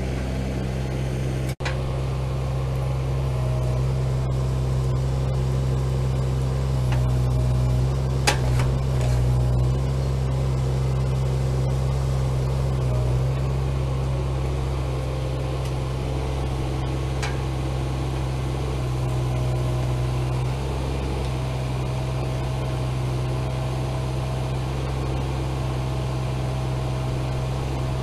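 Kubota mini excavator's diesel engine running steadily while its hydraulics push a truck frame into place, the engine note swelling briefly a few times under load. A single sharp knock about eight seconds in.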